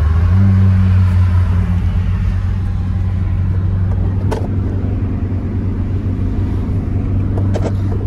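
Honda Civic wagon driving, heard from inside the cabin: a steady low engine and road drone, a little louder in the first couple of seconds, then easing. One sharp click about four seconds in.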